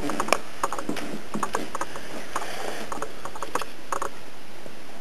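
Scattered small clicks and wet smacks from a baby being spoon-fed mashed banana, his mouth working on the food and the spoon, over a steady hiss.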